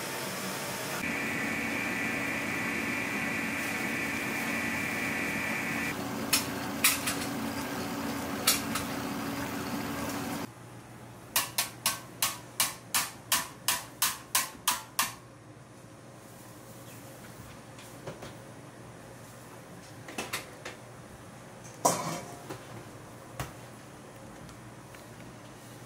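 Stainless stand mixer running steadily, its flat beater churning yellow batter in a steel bowl, with a higher tone joining in for a few seconds; it cuts off about ten seconds in. Then about a dozen sharp metallic taps, about three a second, as a large wire balloon whisk is knocked against a steel mixing bowl to shake off meringue, followed by a few scattered clanks.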